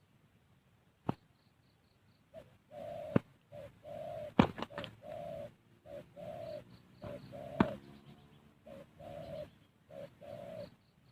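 Spotted dove (tekukur) cooing, a run of short repeated coo notes, from the decoy bird, since the caught dove never calls. Several sharp knocks fall among the coos, the loudest about four and a half seconds in.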